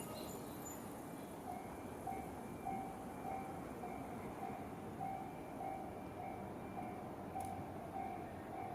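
Japanese railway level-crossing warning bell starting to ring about a second and a half in, an electronic 'kan-kan' tone repeating a little under twice a second over steady background noise: the crossing is closing for an approaching train.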